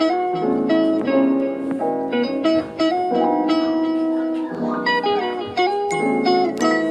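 Background music: a plucked guitar melody, one note after another.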